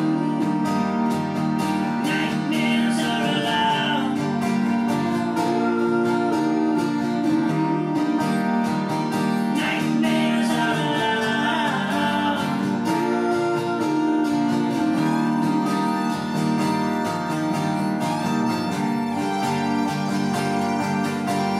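Live acoustic folk band playing an instrumental passage: acoustic guitars strumming chords, with a fiddle bowing the melody above them.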